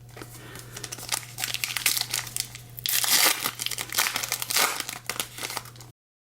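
Foil wrapper of a trading card pack being torn open and crinkled by hand, with a steady low hum underneath; the sound stops abruptly near the end.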